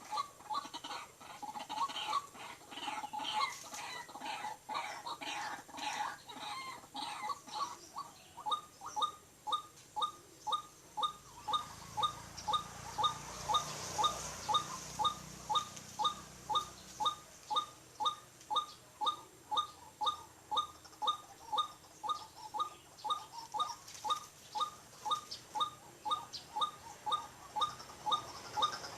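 White-breasted waterhen calling: a jumble of overlapping calls for the first several seconds, then a steady run of short, evenly repeated notes, about two a second.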